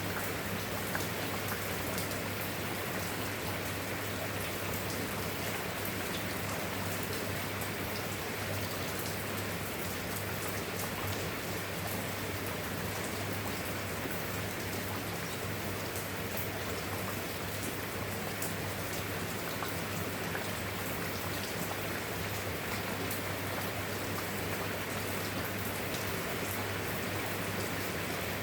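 Steady rain: a constant even hiss with scattered sharp drop ticks, over a low steady drone underneath.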